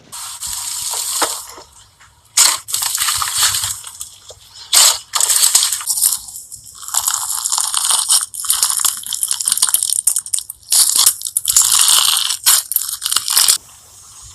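Slime being squeezed and worked by hand, giving bursts of dense crackling and popping with short pauses between them.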